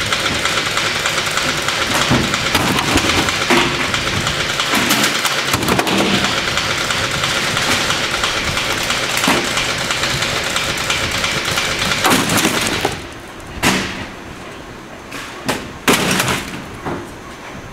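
Industrial shredder running with a loud, steady grinding noise full of cracks and crunches as it chews through e-waste. About thirteen seconds in the grinding drops away and a few sharp thumps and crashes follow as boxes of electronics are dropped into the hopper.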